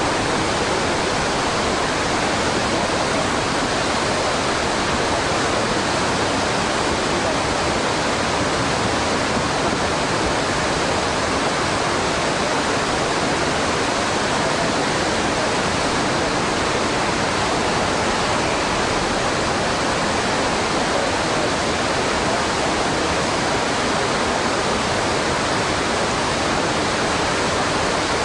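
Fast, swollen river in spate rushing past, a steady unbroken noise of turbulent whitewater.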